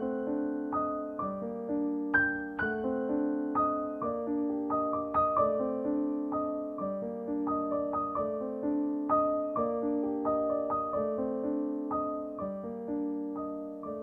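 Background music: piano playing a melody over chords, its notes struck one after another and fading.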